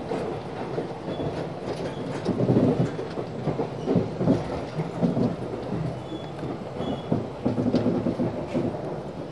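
Running noise of a moving 24-series sleeper coach heard from inside its corridor: a steady low rumble and rattle of the train in motion, with irregular louder knocks.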